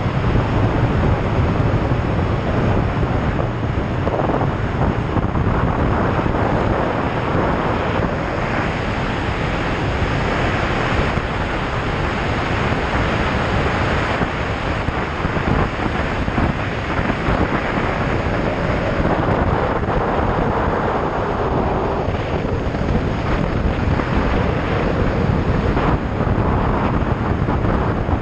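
Steady wind rush on the microphone of a moving Triumph Tiger 800 XRx motorcycle, with its three-cylinder engine running underneath and its pitch rising and falling a little in the second half.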